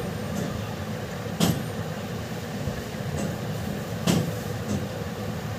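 Steady low machine hum, with two sharp clicks of small tools on the workbench, about one and a half and four seconds in.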